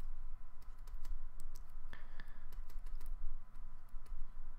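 Stylus tapping and scratching on a tablet as a word is handwritten: a stream of irregular light clicks, over a faint steady hum.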